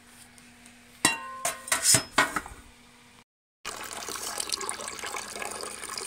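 A stainless steel frying pan clanking several times against a stainless sink, with short metallic rings. After a short break, tap water runs steadily into the pan to rinse it.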